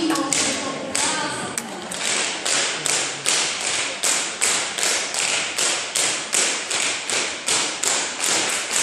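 Dancers' heeled shoes striking a wooden floor in a steady rhythm, about two and a half taps a second, starting after a brief voice at the beginning.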